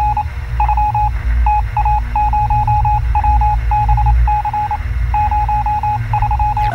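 Electronic intro soundtrack: a single-pitched beep keyed on and off in irregular short and long beeps, Morse-code-like, over a loud, steady low drone.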